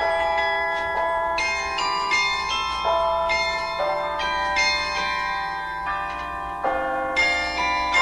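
The carillon of Burton Memorial Tower playing a melody: struck bell notes ring on and overlap, with a new note or chord about every half second to a second.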